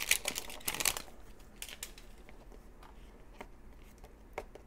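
Plastic wrap crinkling off a Toy Mini Brands capsule ball for about the first second, then faint scattered clicks and scratches as a fingernail slits the seal stickers along the ball's plastic seams.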